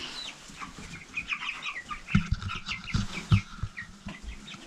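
A flock of four-week-old Meat King broiler chicks peeping, many short falling chirps overlapping. Partway through come several dull knocks.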